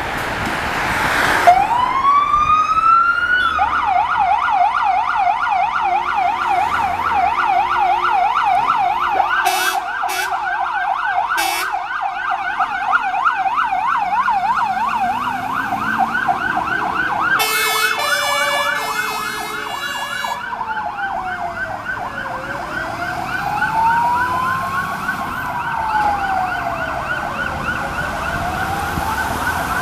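Fire-engine sirens leaving on an emergency call. One winds up about a second and a half in and switches to a fast warbling yelp that runs on. About two-thirds of the way through, a horn sounds in several short blasts, and after that a second siren adds a slow rising and falling wail.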